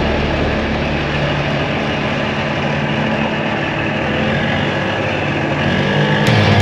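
Golf cart driving on a gravel road: a steady rush of tyre and road noise mixed with wind buffeting the microphone.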